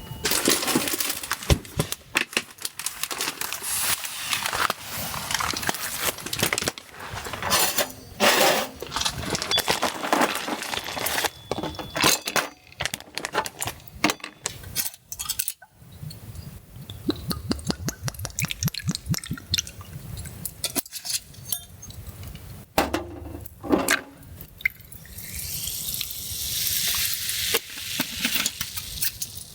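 Camp cooking: metal cookware and utensils clinking and scraping in irregular knocks, with food sizzling near the end.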